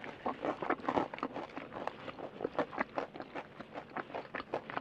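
Close-miked crunching of crispy breaded fried chicken being chewed, about four crisp crunches a second.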